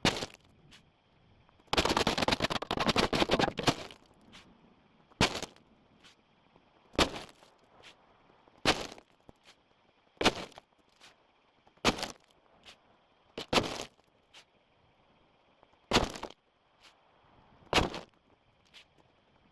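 Hand-shoveled crushed-stone track ballast: a long pour of stone about two seconds in, then a sharp scrape of shovel and stone roughly every one and a half to two seconds.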